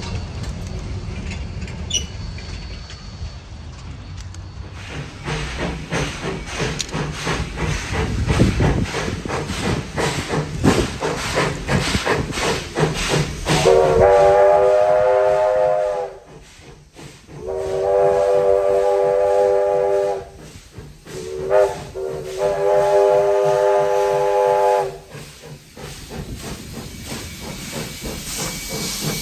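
Steam locomotive working, its exhaust chuffing in a steady beat. It then blows its steam whistle in the grade-crossing pattern: long, long, short, long. Steam hisses after the last blast.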